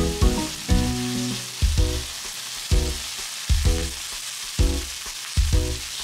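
Chicken pieces sizzling steadily in a frying pan as cubes of konnyaku are added. Background music with a steady beat, about one deep note a second, sits over the sizzle and is the loudest part.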